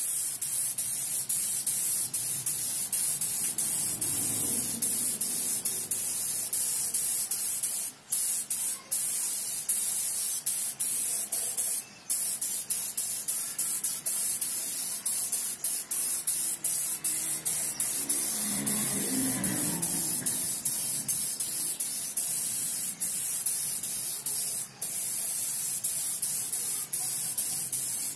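Compressed-air spray gun hissing steadily as it sprays a black base coat onto a motorcycle engine cover, with brief breaks between passes.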